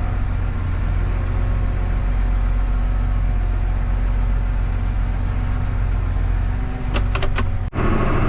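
John Deere 8430 tractor's diesel engine running steadily with a deep rumble. A few brief high squeaks come near the end, and then the sound breaks off abruptly.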